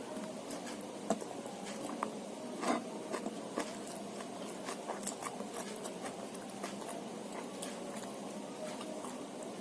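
A person chewing and eating a meal of rice, petai beans and sambal, with many short, irregular clicks over a faint steady hiss.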